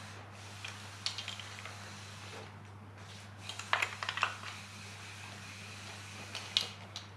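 Plastic wiring-loom connectors and cable being handled and pushed into place on an engine: scattered small clicks and rustles, loudest in a short cluster about four seconds in, over a steady low hum.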